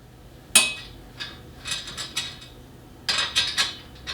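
Metal hardware of a hose reel cart clinking and knocking as a wheel is slid onto its axle with a washer and nut: one sharp clink about half a second in, a few light ticks, then a quick run of clinks near the end.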